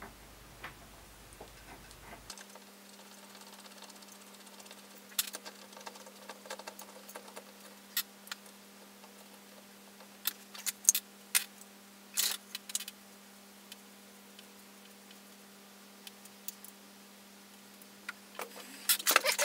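Metal parts of a drill spindle assembly clicking and clinking as they are handled and fitted together on a workbench: scattered light taps, busiest in the middle stretch.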